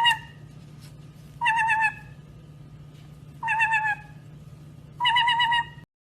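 A bird calling: a short, quavering, pitched call repeated four times, about every two seconds, over a steady low hum.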